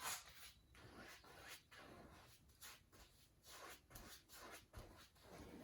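Faint, rhythmic swishing of a 1.5-inch paintbrush stroked back and forth across a canvas, blending wet paint, about two to three strokes a second.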